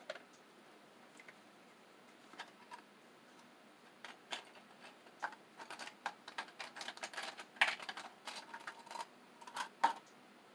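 Small parts being handled by hand at a workbench: scattered light clicks and rattles that thicken into a quick run of ticks over the second half, with a sharper tap near the end as a small tin is set down on the wooden bench.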